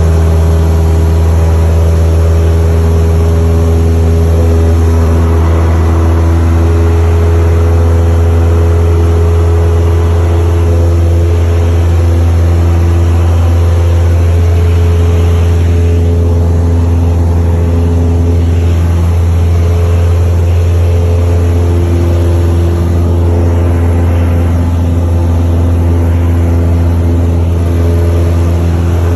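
Single-engine piston airplane's engine and propeller droning steadily, heard from inside the cockpit: a loud, deep, continuous hum with higher steady tones that shift now and then.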